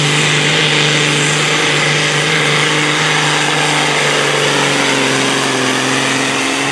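Volvo BM pulling tractor's diesel engine running flat out under load as it drags the weight sled: a loud, steady engine note that drops away shortly before the end.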